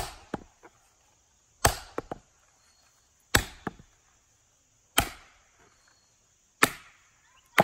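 Cheap axe deliberately overstruck onto a wooden chopping stump, the handle just behind the head slamming into the stump's edge to break it. Five sharp wooden whacks come one every second and a half or so, each with a short rattle after it, and a sixth lands at the very end.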